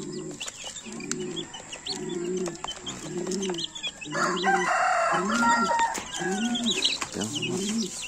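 Chicks peeping around a feeder while an adult chicken gives steady low clucks, a little more than one a second. A louder, longer crow-like call rises over them from about four seconds in, lasting near two seconds.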